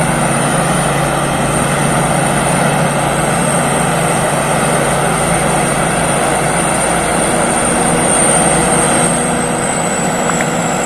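Rice combine harvester running steadily while harvesting, its engine and threshing machinery making a continuous loud drone with a thin high whine that drops slightly in pitch near the end.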